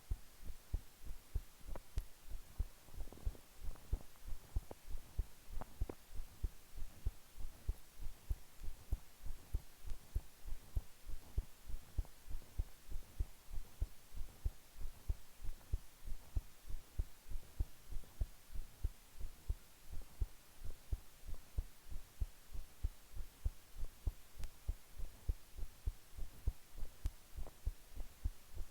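A human heart beating at rest, heard as a steady, even rhythm of low thumps.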